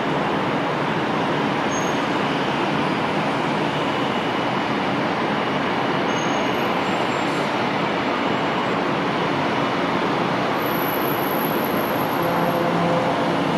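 Twin Pratt & Whitney PT6A turboprop engines of a Beech C90 King Air at takeoff power through liftoff and climb-out: a steady broad drone with a faint turbine whine, the propeller hum growing louder near the end as the aircraft climbs closer.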